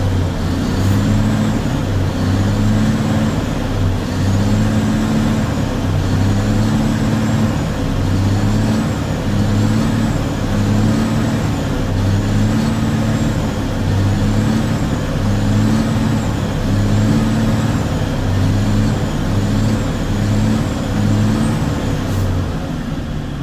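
Caterpillar C9 diesel engine of an MTZ 3522 tractor running at a steady idle, with a regular pulse about once a second. After its first-cylinder injector was replaced it runs evenly, and the injector knock is gone.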